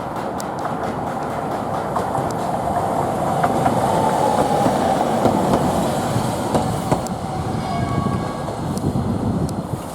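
Toden Arakawa Line tram passing, its running noise swelling toward the middle and easing off near the end, with a few sharp clicks.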